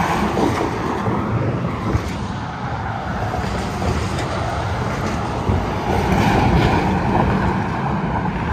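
Interstate highway traffic going by at speed: a steady low engine drone and tyre noise from passing vehicles, swelling a little about six seconds in.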